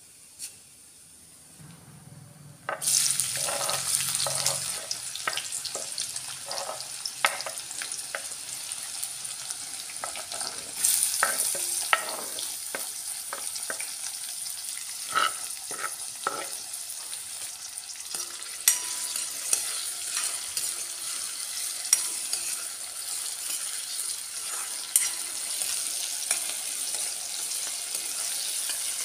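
Hot oil sizzling in a stainless-steel pan as chopped vegetables go in. The sizzle starts suddenly about three seconds in and surges again about eleven seconds in. A steel spoon stirs and scrapes against the pan, making frequent sharp clicks.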